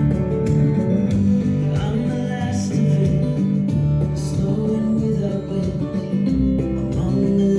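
Guitar-led song playing through a Pioneer SA-5200 amplifier and Klipsch RP-150M speakers, with the amplifier's tone set flat.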